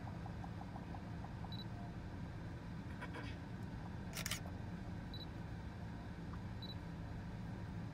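Digital camera taking pictures: three short high beeps as it locks focus, and a sharp shutter click about four seconds in, with fainter clicks a second before it, over a low steady hum.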